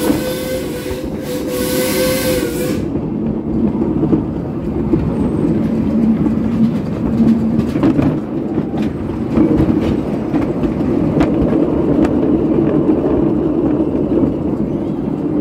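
A miniature railway train sounds its horn once, a steady tone lasting about three seconds. Then comes the train running along the track: a continuous low rumble with occasional clicks from the wheels on the rails.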